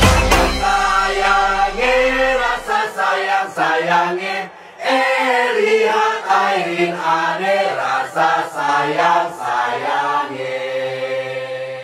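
Group of voices singing a campaign-jingle melody together, with little instrumental backing: the deep bass drops out about half a second in, and the singing fades toward the end.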